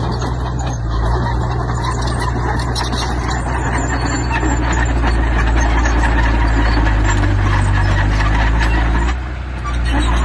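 Heavy diesel construction machinery running steadily under load, with a constant low engine note and a continuous clatter of metal and stone. The engine note eases briefly about nine seconds in, then picks up again.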